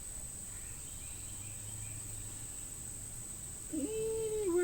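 Steady high-pitched insect chorus, typical of crickets, with a few faint chirps in the first half. Near the end a woman's voice starts a long, held sound.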